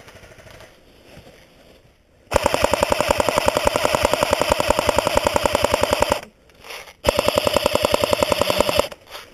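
Cyma AK74M electric airsoft gun (AEG) firing on full auto: a long burst of rapid, evenly spaced shots lasting about four seconds, starting a couple of seconds in, then after a short pause a second burst of about two seconds.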